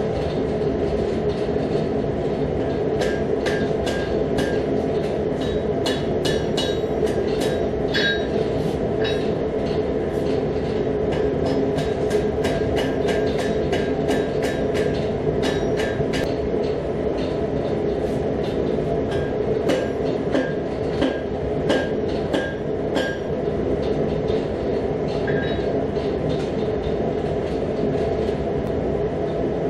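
Gas forge burner running with a steady rush, under a hand hammer striking a red-hot damascus barrel tube on the anvil, each blow giving a short metallic ring. The blows come in a quick run from a few seconds in until about halfway, then in a few shorter runs later.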